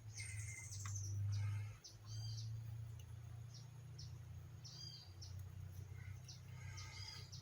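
Small birds chirping in short, high, repeated calls over a steady low hum.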